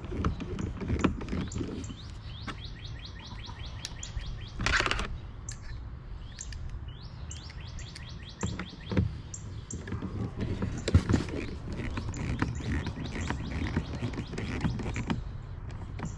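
Small clicks and taps of hand tools as a turn signal is screwed down to the motorcycle's fairing, including a quick run of even ticks a couple of seconds in, with short chirping sounds between them.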